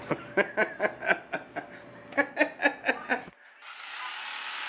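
A man laughing in two quick runs of short bursts. After a cut, a steady hissing noise sets in for the last second or so.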